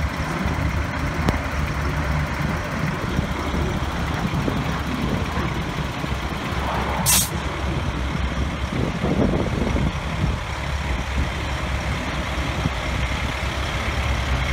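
Fire engine's diesel engine running at a low idle as the truck rolls slowly and stops, with one short, sharp hiss of its air brakes about seven seconds in.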